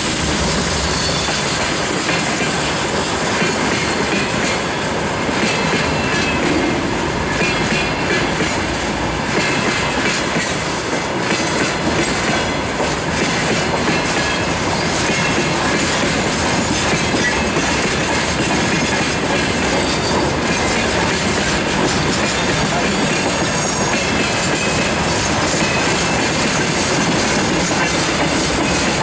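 Freight train of tank cars rolling past close by, its steel wheels running over the rails in a steady, loud rolling noise.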